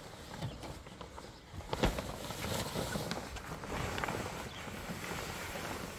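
Rustling and handling of a fabric caravan cover being pulled off, with scattered light knocks, the sharpest about two seconds in.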